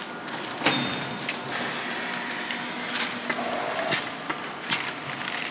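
Industrial vacuum forming machine running: a steady hiss of machine noise with several sharp clicks and knocks at uneven intervals.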